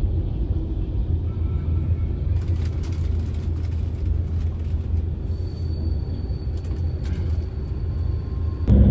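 Steady low rumble of a coach's engine and running gear, heard from inside the passenger cabin.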